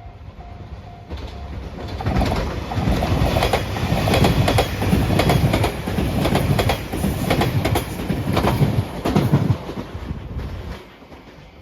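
A level-crossing bell rings in a steady repeating pattern for the first second or so. Then a train passes at speed, its wheels clicking rhythmically over the rail joints, and the sound dies away near the end.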